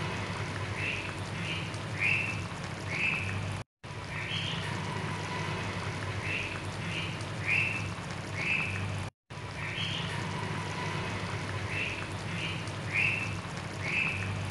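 Fish curry simmering in a wok, the broth bubbling softly over a steady low hum, with short high chirps in the background, a single one then three in quick succession. The same few seconds of audio repeat, cutting briefly to silence twice.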